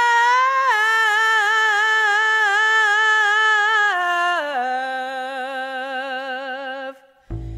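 A female jazz vocalist sings alone, holding a long note with vibrato and then stepping down to a lower held note. Near the end, after a brief pause, the band comes back in with bass and drums.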